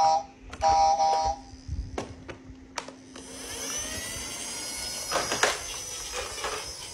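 Battery-powered toy garbage truck's sound button giving two loud electronic honks, a short one and a longer one, followed by a few sharp plastic clicks. About three seconds in, a steady hiss with wavering, gliding high whistling tones sets in and runs on.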